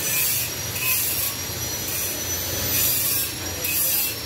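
Hand tool rubbing against a metal exhaust pipe section in a series of short scraping strokes, irregularly spaced about half a second to a second apart, over a steady high whine and a low hum.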